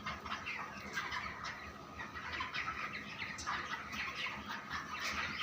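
A flock of broiler chickens near market age, many birds cheeping and peeping at once in a continuous overlapping chorus.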